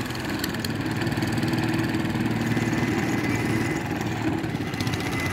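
Small long-tail boat motor running steadily under way, its long propeller shaft driving a loaded wooden boat.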